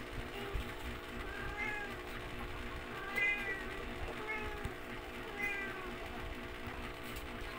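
A cat meowing several times, short rising-and-falling calls spaced a second or so apart, over a steady low hum.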